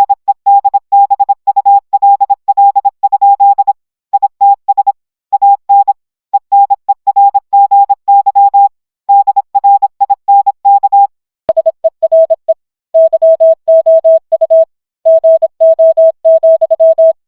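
Morse code beeps: a single steady tone keyed on and off in dots and dashes, in groups with short pauses between them. About eleven and a half seconds in, a click sounds and the tone drops to a lower pitch, then keys on in the same way.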